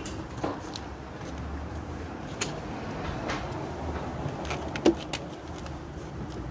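Scattered light clicks and knocks of a bicycle trailer's wheel, axle pin and rubber cap being handled, the sharpest about five seconds in, over a steady low background rumble.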